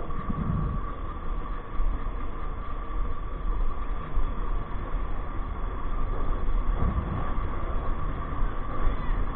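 A Yamaha motorcycle riding along a road: a steady engine drone mixed with wind rumbling on the handlebar-mounted microphone. Two brief low bumps come through, one just after the start and one about seven seconds in.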